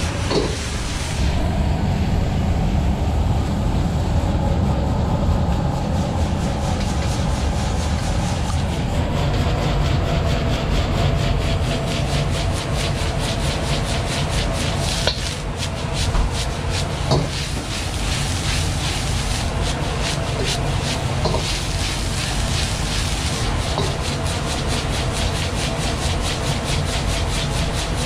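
Metal ladle and spatula scraping and knocking against a wok as fried rice is stirred and tossed, over the steady low roar of the gas wok burner. The scraping strokes come thicker and faster from about halfway through.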